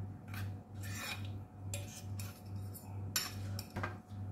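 Steel spoon scraping and clinking against the inside of a bowl as curd and spices are stirred together, in short strokes about twice a second, over a faint low hum.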